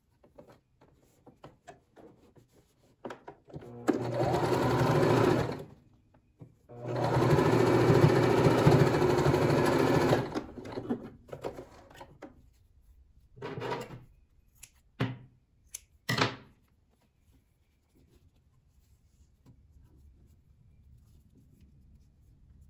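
Electric domestic sewing machine stitching through fabric in two steady runs of about two and three and a half seconds, then three short bursts of a stitch or two. Faint clicks and fabric rustle come between the runs as the fabric is positioned.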